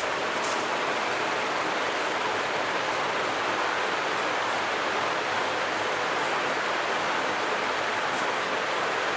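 Steady, even hiss of background noise, with a couple of brief, faint, high scraping strokes: a straight razor drawn across a shaved scalp.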